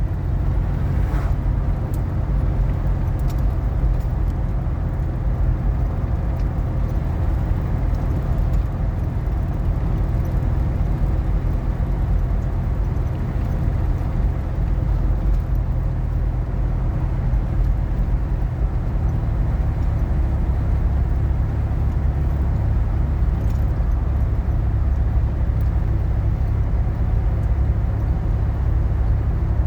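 Car driving: steady low engine and road rumble, with a slight change in the engine's low tone about two-thirds of the way through.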